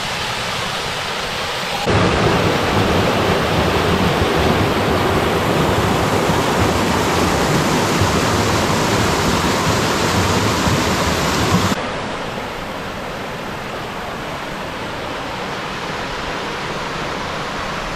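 Waterfall rushing steadily. It jumps louder and fuller about two seconds in and drops back to a softer rush near the twelfth second.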